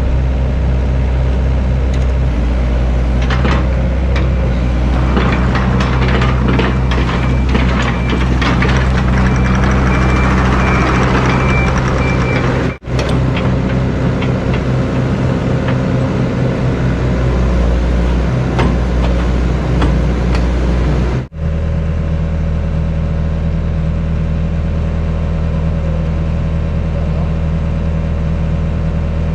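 Diesel engine of a hydraulic excavator running steadily, with scattered clanks and scrapes from the machine working over the first half. The sound breaks off briefly twice.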